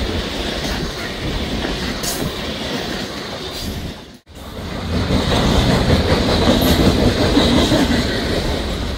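Loaded coal train's freight cars rolling past on jointed rail: steady wheel rumble and clickety-clack clatter. The sound drops out for an instant about four seconds in, then comes back louder.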